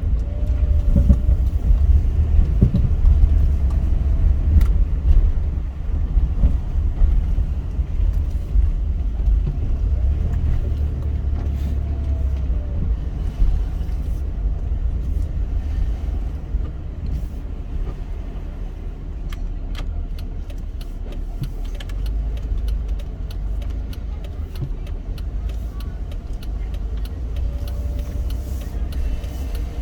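A car driving along, with a steady low rumble of road and engine noise.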